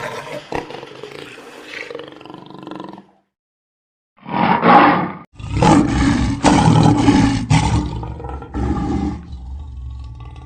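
Big cat roaring, heard in three spliced bits that start and stop abruptly, with a pause of silence a few seconds in.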